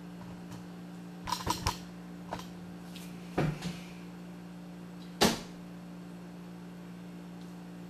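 Clicks and knocks of a camera tripod being handled and adjusted: a quick run of three clicks just over a second in, a few lighter knocks and a dull thud, then one sharp knock about five seconds in, the loudest. A refrigerator's constant hum sits underneath.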